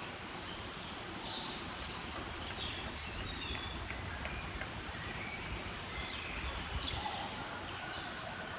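Birds chirping and calling, with many short high notes and quick falling whistles, over a steady background hiss.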